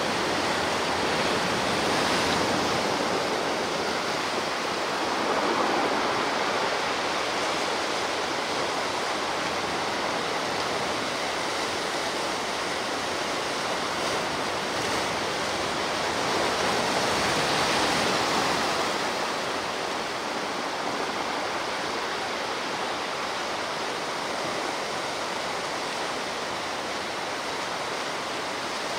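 Sea surf washing on the shore at night: a steady rushing of waves that swells gently a few times as bigger waves break.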